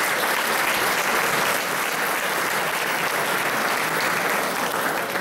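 Audience applauding, a dense steady clapping that cuts off abruptly at the very end.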